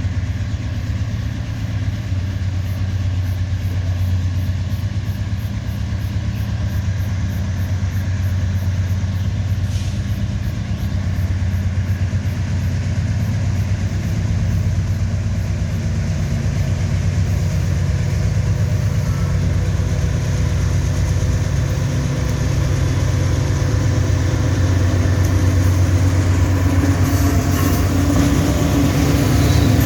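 Diesel-electric freight locomotives' engines running with a steady, deep hum, growing slightly louder near the end.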